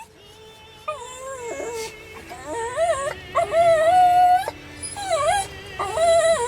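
A schnauzer whining and howling in long, wavering cries that rise and fall in pitch, some notes held for about a second.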